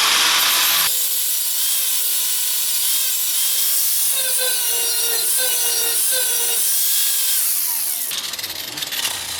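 Angle grinder with a flap disc sanding down a MIG weld on a steel fender lip, the motor's whine wavering a little under load. About eight seconds in it is switched off and its whine slides down as it spins to a stop.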